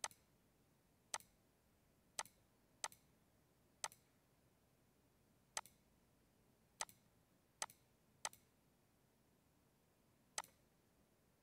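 Computer mouse button clicking about ten times at irregular intervals, short sharp single clicks over faint room hiss, as options are picked from drop-down menus.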